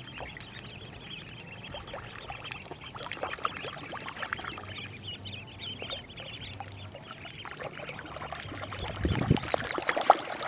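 A flock of ducklings peeping constantly, many high calls overlapping. Near the end, louder splashing joins in as they paddle off into the water.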